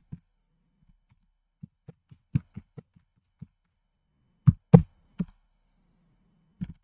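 Computer keyboard keystrokes: a run of about seven quick light key taps, then a few louder strokes about four and a half seconds in, and one more near the end.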